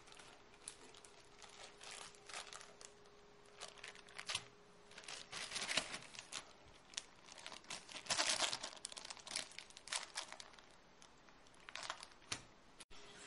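Plastic Ziploc bags crinkling and rustling as they are handled and their zippers pressed shut, in irregular crackles, loudest about eight seconds in.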